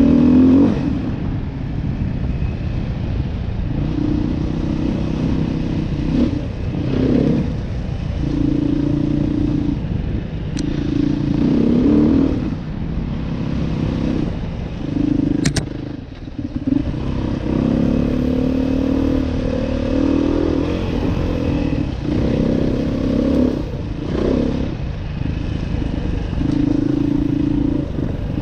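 Beta 500 RR-S single-cylinder four-stroke dual-sport motorcycle engine running along a dirt trail under changing throttle. Its pitch holds steady for a second or two at a time, then dips briefly as the throttle comes off or it shifts. A single sharp click a little past halfway.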